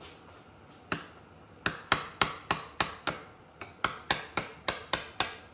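Hammer tapping a file used as a drift against the collar on a dirt bike's steering stem, knocking it loose to free the lower triple clamp. One blow about a second in, then a quick run of about a dozen sharp metal-on-metal taps, three or four a second, each with a short ring.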